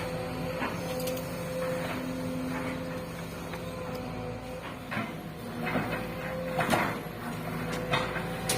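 Sumitomo SH210 long-arm excavator at work: its engine and hydraulics run with a steady hum, and several sharp knocks and scrapes come in the second half.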